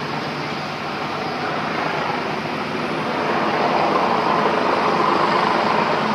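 Helicopter flying overhead, a steady rushing drone that grows louder over the last few seconds.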